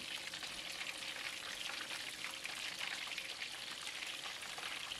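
Battered fish fillets deep-frying in hot oil in a wok, sizzling steadily with a fine crackle, the fish nearly done and crispy golden brown.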